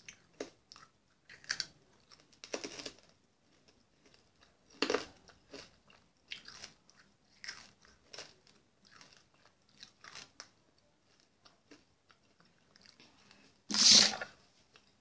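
Mouth sounds of chewing a Toxic Waste sour hard candy: scattered short crunches and wet smacks, with a loud burst of breath near the end.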